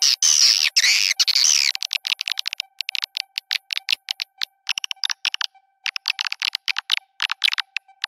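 Swiftlet call-sound lure track: dense, high swiftlet chirping and twittering for about the first two seconds. It then breaks into short runs of rapid dry chittering clicks, over a faint steady tone.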